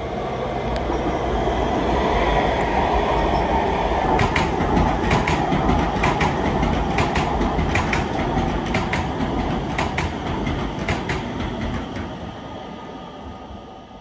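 Metro train running on the rails, a steady rumble with a run of sharp wheel clicks over rail joints in the middle, swelling at first and fading away near the end.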